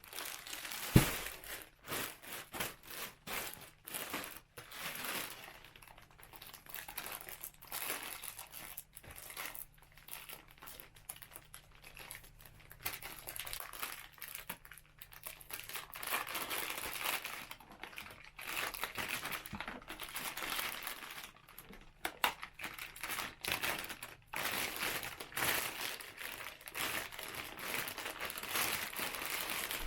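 Plastic futon compression bag crinkling and rustling in irregular bursts as it is handled, with one sharp knock about a second in.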